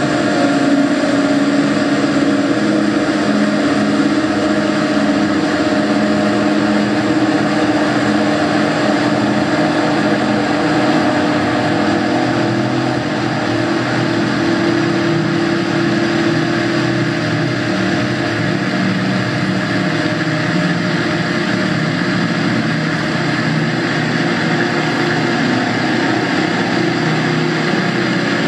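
Live electronic drone music from a mixer and laptop: a dense, steady wash of held tones over noise, with no beat.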